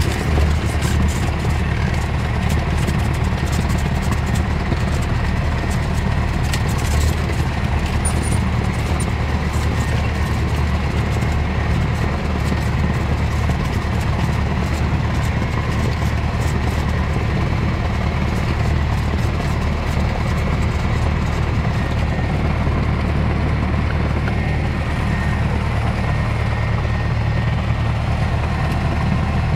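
Cessna 172's piston engine and propeller running steadily at low taxi power, heard from inside the cabin as a deep drone. A few light rattles come through between about five and twelve seconds in.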